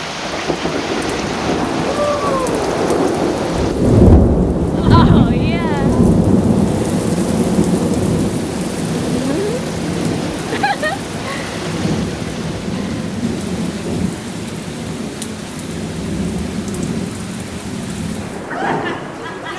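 Steady heavy rain from a tropical storm falling on a wooden deck, with a loud, deep roll of thunder about four seconds in that rumbles on for a couple of seconds before easing back to the rain.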